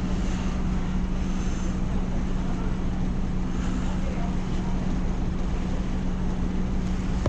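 Kanmon Kisen ferry Fukumaru's engine running, a steady low hum and rumble heard from the open upper deck with the boat still at the pier.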